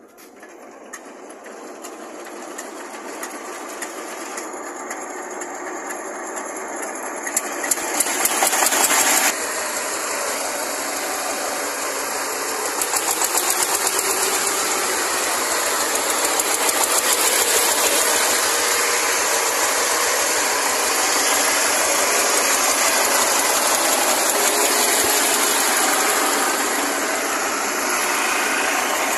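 A 24 hp diesel engine on a homemade vehicle running with a rapid, steady clatter. It builds up over the first several seconds and revs hard briefly about eight seconds in, then runs evenly as the vehicle drives.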